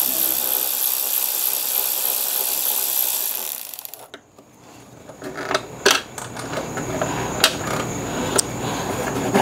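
Cordless power screwdriver running steadily as it backs out a motorcycle fuel-tank bolt, cutting off about four seconds in. Then a series of sharp metallic clicks and clinks as the loosened parts are handled.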